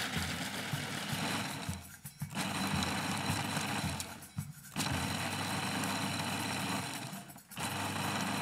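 Food processor running in pulses, grinding cheese-flavoured snacks into crumbs: four runs broken by short pauses about two, four and a half, and seven and a half seconds in.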